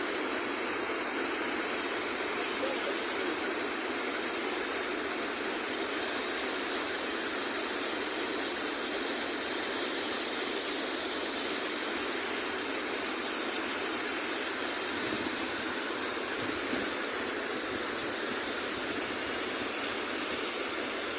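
Water from a dam's emergency release rushing steadily, an even, unbroken rush of noise.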